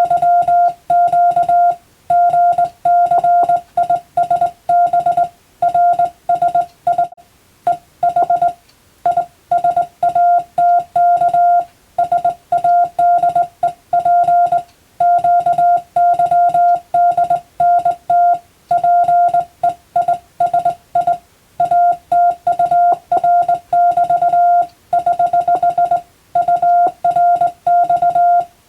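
Morse code (CW) practice signal: a single steady mid-pitched beep keyed rapidly on and off in dots and dashes, forming letter groups with short pauses between them, as in sending telegram text for radiotelegraph receiving practice.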